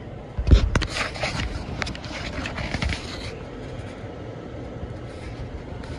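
Handling noise around a bare ATV frame: a heavy thump about half a second in, then a run of clicks, knocks and scrapes for about three seconds before it settles to a low background.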